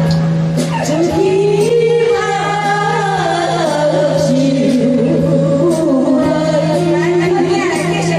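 A voice singing a melody over music, with a steady low hum underneath.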